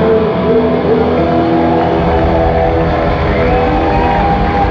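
Live punk rock band playing loud, with distorted electric guitars holding long ringing notes and a note sliding up and back down near the end.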